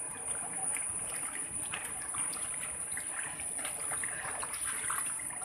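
Water trickling and lightly splashing, with small scattered splashes, over a steady high-pitched tone.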